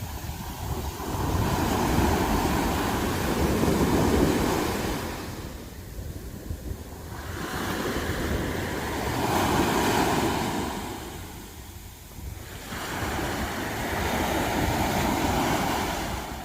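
Sea waves washing onto a sandy beach, the surf swelling and fading in three surges, with wind buffeting the microphone.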